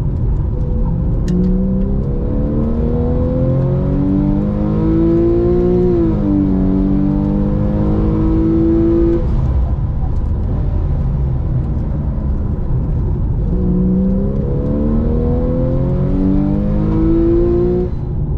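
Car engine heard from inside the cabin at speed. It revs up over about four seconds, dips briefly about six seconds in, holds steady, and falls away about nine seconds in. It then climbs again from about thirteen seconds to near the end.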